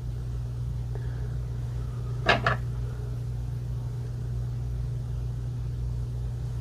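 Two sharp clicks about a quarter second apart, a little over two seconds in, from handling a tin of airgun pellets, over a steady low hum.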